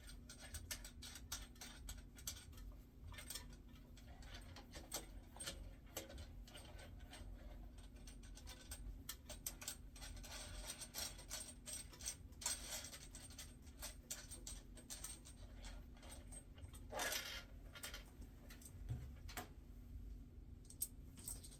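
Many small, irregular clicks and ticks of hands working with small parts and tools on a sewing machine, with a short scraping rustle about 17 seconds in and a faint steady hum underneath.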